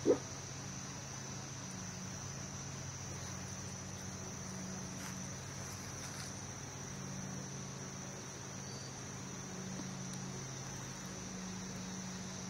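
Insects chirring steadily in a high, unbroken band over a low steady hum, with one short, loud sound right at the start.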